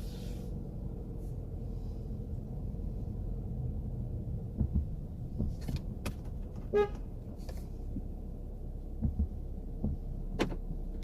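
A car running, heard from inside the cabin: a steady low rumble of engine and road, with a few scattered clicks and knocks and one brief high tone about seven seconds in.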